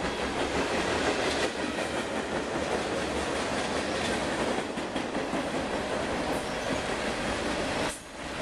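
Freight train rolling past close by: the steady noise of the freight cars' steel wheels running on the rails, with a brief dip in level near the end.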